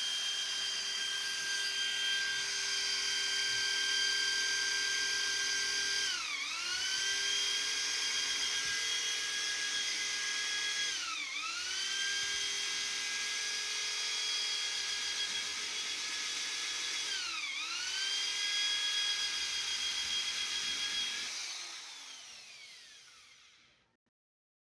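Corded electric hand drill spinning a foam polishing pad against a plastic headlight lens: a steady high motor whine that sags in pitch and recovers three times as the pad is pressed in. Near the end the drill is released and winds down to a stop.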